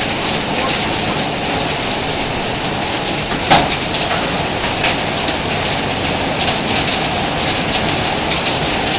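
Hailstorm with heavy rain pelting down: a steady dense roar with scattered sharp hits, one louder hit about three and a half seconds in.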